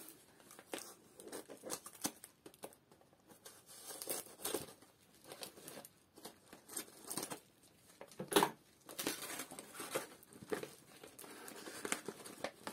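Paper wrapping (printed calendar pages) crinkling and tearing as it is pulled by hand off a potted plant cutting, in irregular rustles with a louder crackle just over eight seconds in.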